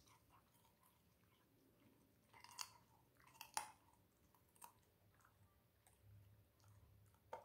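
A chow chow chewing and crunching a piece of raw carrot: a few faint, sharp crunches spaced out, the loudest about two and a half and three and a half seconds in.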